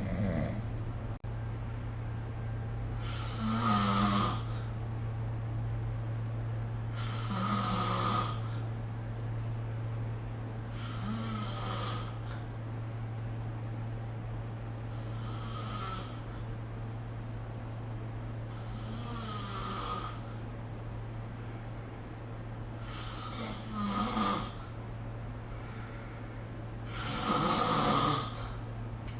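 A sleeping person snoring, seven snores about four seconds apart, each lasting a second or so, over a steady low hum.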